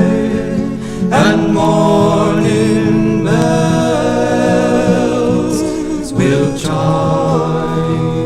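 Voices singing together in harmony on long held notes, with new sung phrases starting about a second in, three seconds in and six seconds in.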